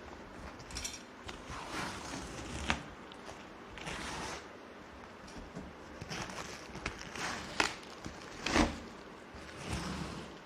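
Packaging being handled and opened: rustling, scraping swishes and scattered sharp clicks and knocks, the loudest knock about eight and a half seconds in.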